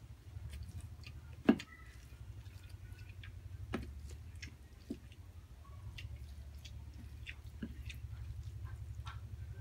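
Close-up chewing and wet mouth sounds of a person eating rice and chagempomba, with fingers squishing food in a bowl. It is scattered with small clicks and smacks, the loudest a sharp click about a second and a half in, over a steady low hum.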